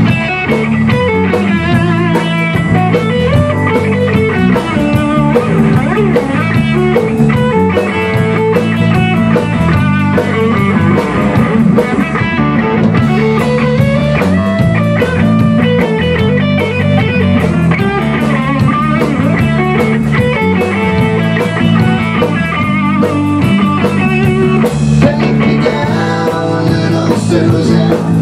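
A rock band playing live and loud: electric guitar, electric bass and drum kit.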